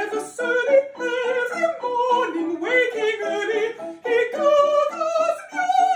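Contralto voice singing an art song with piano accompaniment: a woman's voice with wide vibrato over short, detached piano chords.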